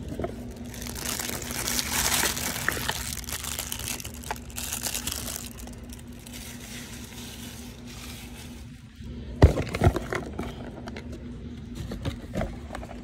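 Paper and cardboard rustling as shoe boxes are handled and the tissue-paper wrapping inside is crinkled, with a few sharp knocks about nine and a half seconds in, the loudest part. A faint steady hum runs underneath.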